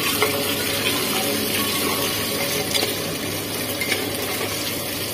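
Potatoes and onions sizzling in hot oil in an aluminium pressure cooker while a metal spoon stirs them, scraping and clicking now and then against the pot.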